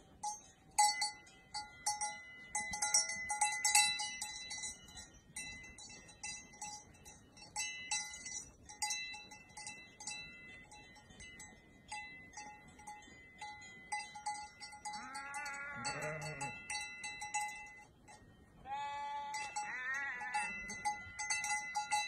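Livestock bells clanking and ringing steadily on a grazing flock of Valais Blacknose sheep. A sheep bleats twice in the second half.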